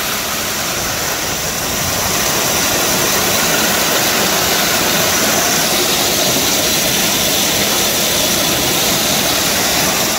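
Heavy hail pouring down: a steady, dense roar of countless hailstones striking, growing a little louder about two seconds in.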